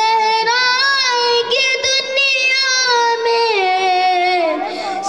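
A boy singing an Urdu devotional poem about the Quran solo into a microphone, holding long high notes that slide from one pitch to the next.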